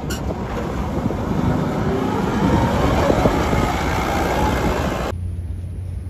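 Forklift engine running as the truck drives along, a steady mechanical noise with a few knocks; it cuts off suddenly about five seconds in.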